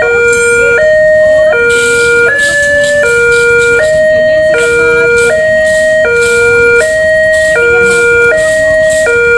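Railway level-crossing warning siren sounding a steady two-tone hi-lo alarm, switching between a lower and a higher tone about every three quarters of a second; the uploader calls this crossing's siren unique and faulty.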